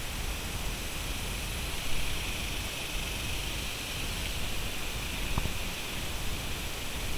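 Steady outdoor hiss with low rumble, and a faint short knock about five seconds in.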